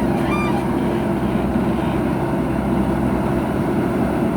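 Heavy diesel construction machinery running steadily at a constant level, with a short high-pitched chirp about half a second in.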